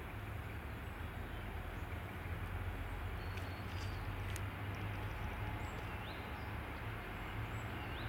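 Distant M62 diesel locomotive's two-stroke V12 diesel engine droning steadily as the train approaches, growing a little louder a couple of seconds in, with a few faint bird chirps over it.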